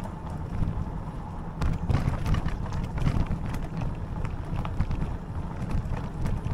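Wind buffeting the microphone of a Himiway Zebra e-bike rolling along a rough, cracked lane, with a steady low tyre rumble. From about a second and a half in, short rattling knocks come thick and fast as the bike jolts over the bumps.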